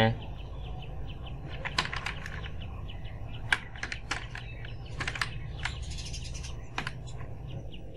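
Computer keyboard keys clicking as a word is typed, a scatter of separate irregular clicks.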